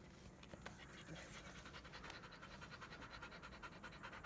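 A black Labrador retriever panting quickly and evenly, faint.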